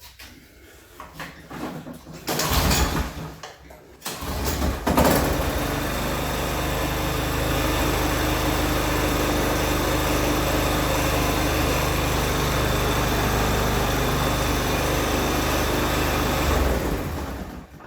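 Toro TimeMaster lawn mower engine: a first short try about two seconds in, then it starts on a second attempt about five seconds in. It runs steadily, then shuts off near the end, the test that the newly replaced kill switch stops the engine.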